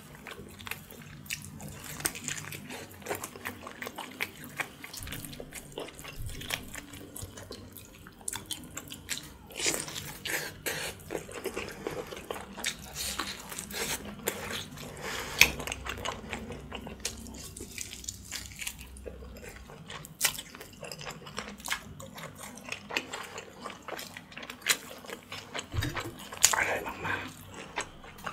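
Close-miked eating sounds: wet chewing, smacking and sucking, with many small clicks as meat is bitten and pulled off a boiled pork backbone.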